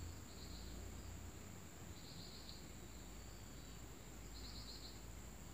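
Faint insects calling: a steady high thin whine with a short pulsed trill repeating about every two seconds.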